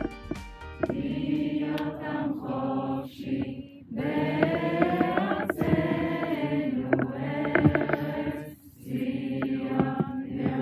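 A group of voices singing together in long sung phrases, with short pauses between them, taking over from a soft instrumental piece about a second in.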